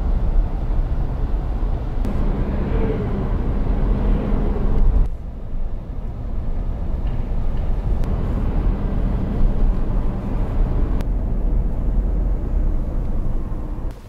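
Steady road noise and engine hum heard from inside a Toyota Land Cruiser 200 SUV driving on a snowy road. The sound changes abruptly twice, about five and eleven seconds in, at cuts between shots.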